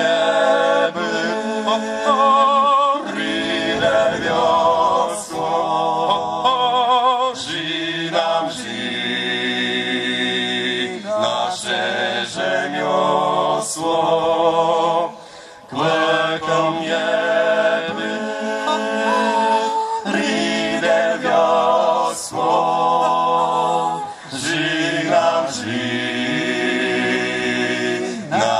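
Male vocal quartet singing a Kashubian song a cappella into microphones, several voices together with no instruments. There is one short break between phrases about halfway through.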